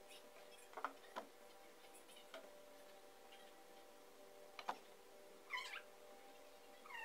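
Near silence with a few faint taps and rustles of camouflage wrap tape being wound and pressed onto an air rifle, and a short wavering high squeal about five and a half seconds in.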